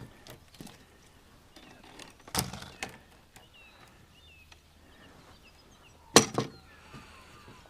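Two sharp thumps, one about two and a half seconds in and a louder double one about six seconds in, with faint short bird chirps between them.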